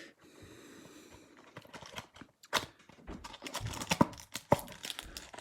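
Plastic wrapper of a trading-card pack being torn and crinkled open by hand, with irregular crackles and snaps.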